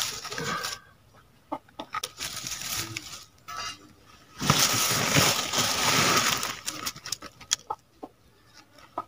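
Dry leaves rustling and crackling in a clay pit stove as it is being lit: a short burst of rustling at the start, a longer one of about two seconds halfway through, and scattered small clicks between.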